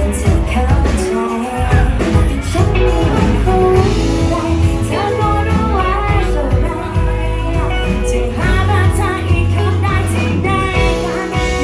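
A woman singing a pop-rock song, backed by a band with bass, drums and guitar.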